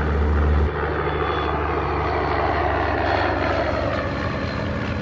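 Propeller airplane's piston engines droning steadily in flight, with a low hum that drops away a little under a second in.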